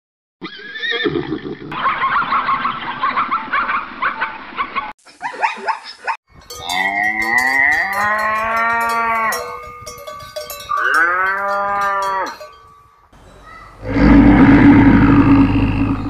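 Cows mooing in two long calls while cowbells clank. Near the end a big cat gives a deep, loud roar, the loudest sound here. An unidentified sound fills the first few seconds.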